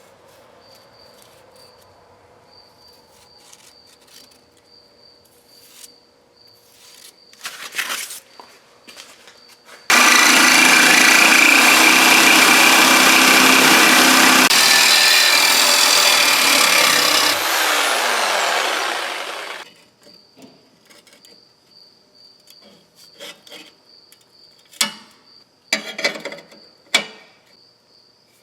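Cutoff wheel cutting through steel exhaust pipe. It starts abruptly, runs loud and steady for about eight seconds, then winds down with a falling pitch as the wheel spins down. A few sharp clicks and knocks come before and after.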